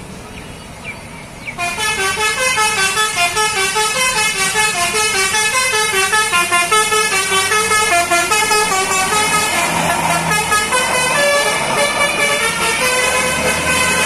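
Basuri 'telolet' musical horn playing a fast, rippling melody of short stepped notes, starting about a second and a half in. From a little past the middle, the noise of a heavy vehicle passing close rises under the horn.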